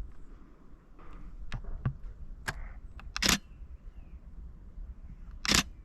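Canon Rebel T7i DSLR shutter firing: a few single clicks, then two louder short bursts about three and five and a half seconds in.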